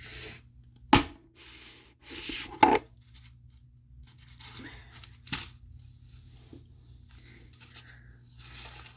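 Toy packaging being torn open and handled: short bursts of tearing and rustling with three sharp clicks or snaps, the loudest about a second in and near a third of the way through.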